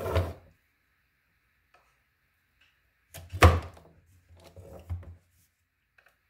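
Clunks of a plastic auxiliary cooling fan assembly being handled on a wooden workbench: a knock at the start, a louder thunk about three and a half seconds in as it is set down, then a few lighter knocks.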